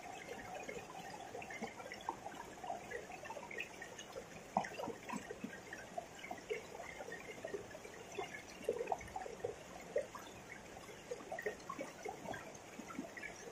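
River water trickling and burbling, with many small scattered plinks and drips.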